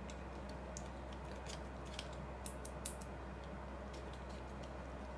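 Faint small metallic clicks and ticks as a screwdriver works the adjusting screw of a small SX-70 shutter solenoid held in the fingers. The clicks are scattered, with a few sharper ones two to three seconds in, over a steady low hum.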